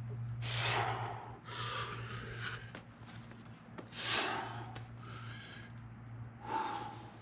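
A boulderer breathing out hard with the effort of hard moves on an overhanging problem: four loud, rough breaths a second or two apart.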